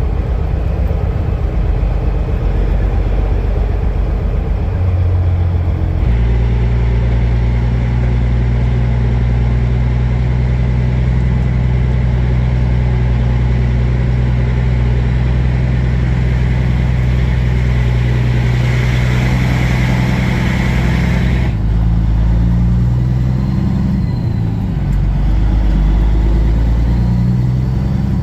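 Semi truck's diesel engine running with a steady low drone, stepping to a new pitch about six seconds in and again past twenty seconds. From about eighteen seconds a rushing hiss builds and then cuts off suddenly.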